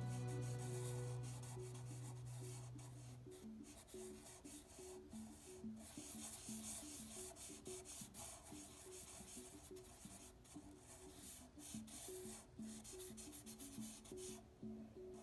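Sharpie marker dragged across paper in long drawing strokes: a faint scratching broken by many short pauses. Soft background music plays under it, a low held note stopping about three seconds in, then short repeated notes.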